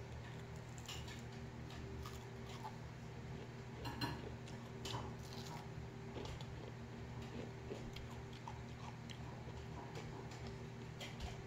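Soft sounds of eating fried chicken and rice by hand: scattered small clicks and crackles from chewing and from fingers on the plate, a louder pair about four and five seconds in, over a steady low hum.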